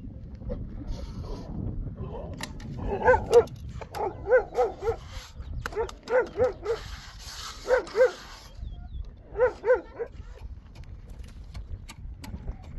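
A dog barking in short runs of two to four barks, five runs over about seven seconds.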